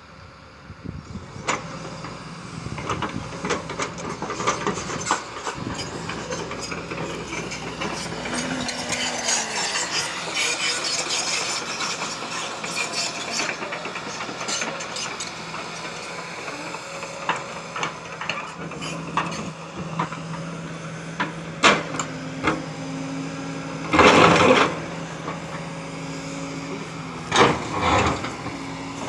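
Excavator's diesel engine running steadily while the bucket scrapes and knocks against stone and earth, with a few loud crashes in the last few seconds.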